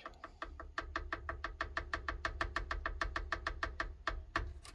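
Music with a fast, even percussive tick, about eight strikes a second, over a low rumble.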